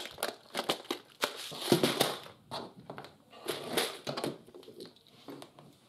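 A clear plastic compartment box of metal wire ferrules being handled, with irregular clicks and rattles from the plastic case and the ferrules inside as one is picked out.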